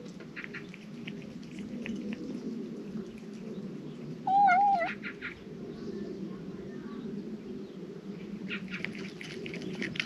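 A cat crunching dry kibble from a bowl: short crisp crunches about a second in and again from near the end, over a steady low hum. About four seconds in, a loud, short, wavering call cuts across.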